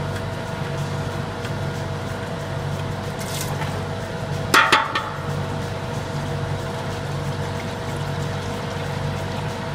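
Hot engine oil pouring in a steady stream from the open drain hole of a Subaru WRX's oil pan into a plastic drain bucket, over a steady hum. A brief clatter about halfway through.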